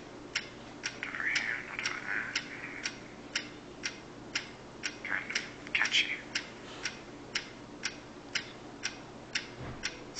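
Steady, clock-like ticking, about two sharp ticks a second, with faint voices in the background.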